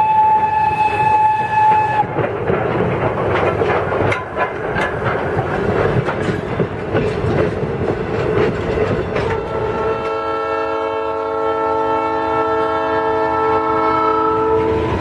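The Thomas the Tank Engine replica's whistle sounds one steady note that stops about two seconds in. Then the passenger cars roll across the street crossing with a clatter of wheel clicks. From about nine seconds in, the Southern Pacific diesel locomotive's horn sounds one long chord.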